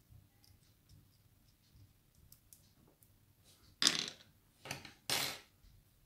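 A brass pin-tumbler lock cylinder being taken apart by hand: faint small metal clicks as a tension wrench works at the screws of its rear cam plate, then three louder, short scraping noises from handling the metal parts about four to five and a half seconds in.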